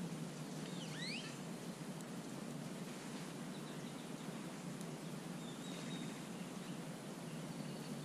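Steady low outdoor background noise, with a bird's quick sweeping two-note call about a second in and a few faint high chirps later.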